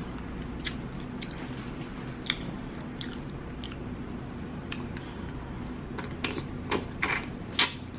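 Close-miked chewing of large prawns in butter sauce: scattered wet mouth clicks and smacks, busier and louder from about six seconds in.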